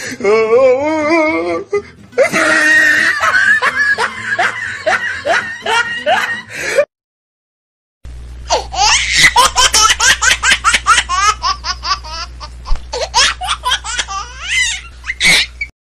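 Loud, hearty laughter in repeated bursts. It cuts to dead silence for about a second around seven seconds in, then resumes as a quick, rhythmic run of laughs over a steady low hum.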